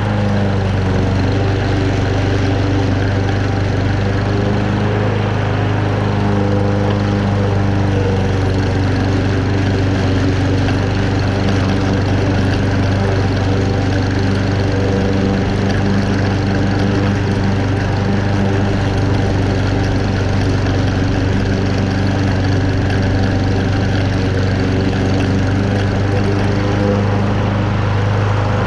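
Honda engine of a Toro Super Recycler walk-behind rotary mower running steadily under load as it cuts moderately wet, tall grass, with an even, unchanging drone.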